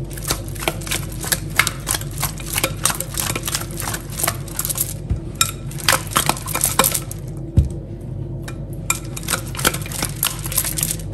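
Seasoned fish pieces being tossed and shaken by hand in a glass mixing bowl to coat them in seasoning, with many quick, irregular clicks and knocks of fish and fingers against the glass.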